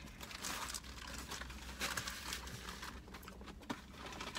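Soft eating and food-handling noises: light clicks and rustles of takeout food and packaging being handled, over a steady low hum.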